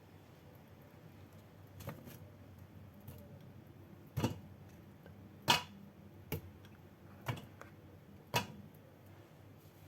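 Six sharp knocks and clicks at uneven intervals, the loudest about halfway through.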